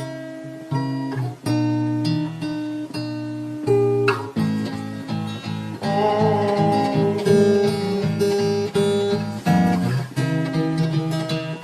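Music: a slowed-down track with an acoustic guitar picking chords. About four seconds in the arrangement fills out and a held melody line comes in above the guitar.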